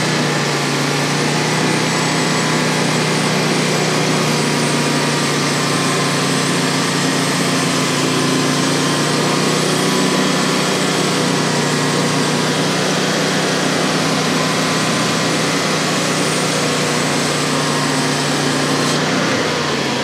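Small petrol engine of a Frontier OS35 portable bandsaw sawmill running steadily at high speed. Near the end its pitch begins to drop as it slows.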